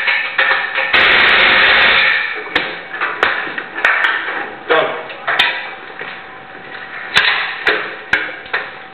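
Exhaust being fitted under a car on a lift: a loud hiss lasting about a second near the start, then a string of about eight sharp metal knocks and clanks at uneven intervals.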